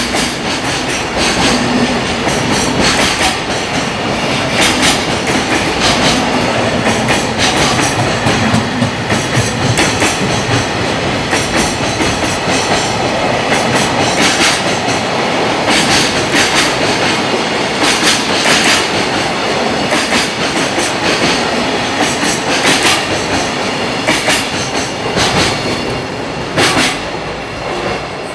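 Long freight train of container flat wagons passing at speed, its wheels clacking over rail joints in regular groups above a steady rumble. It eases a little quieter near the end.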